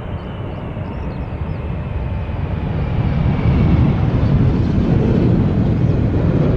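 Boeing 747 jet coming in to land, its engine rumble swelling over a couple of seconds and then holding loud, with a faint whine sliding down in pitch.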